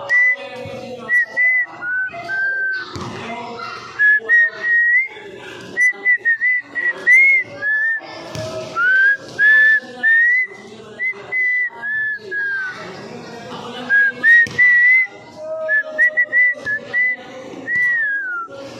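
A person whistling by mouth close to the microphone: a long string of short whistled notes that slide a little up and down, like a tune, over faint voices in the background.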